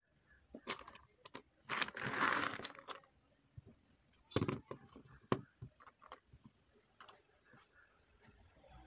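Taps, clicks and rustling as small objects are picked up, moved and set down on a tabletop, with a longer rustle about two seconds in and a louder knock a little after four seconds.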